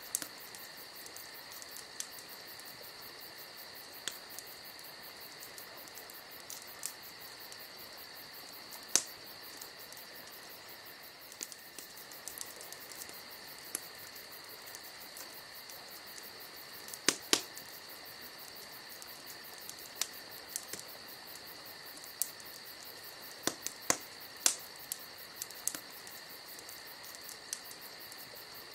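A steady high-pitched trill with a fine rapid pulsing, and sharp clicks scattered through it, the loudest about 9 s and 17 s in and a cluster near 24 s.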